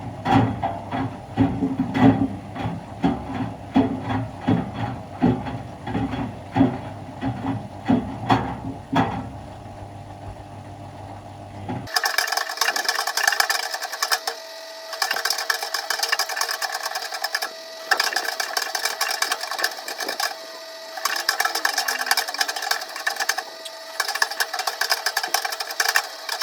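Miele washing machine drum tumbling a 6-litre water bottle: repeated knocks and thuds, about one or two a second. About twelve seconds in, the sound changes abruptly to a thinner, higher rattling with a steady tone, coming in runs of a few seconds with short pauses between.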